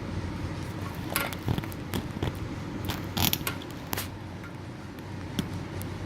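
Fireworks crackling and popping: about eight sharp irregular cracks, the loudest a cluster about three seconds in, over a steady low hum of city traffic.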